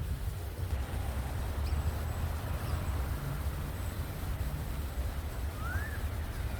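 Wind rumbling on the microphone outdoors, with a single short bird chirp, rising then falling, near the end.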